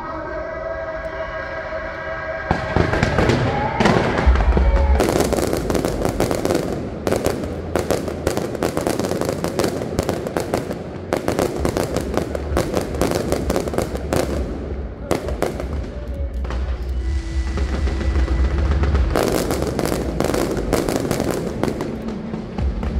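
Fireworks show: from about two and a half seconds in, shells burst in a dense, continuous run of cracks and crackle, with deeper booms among them, over music.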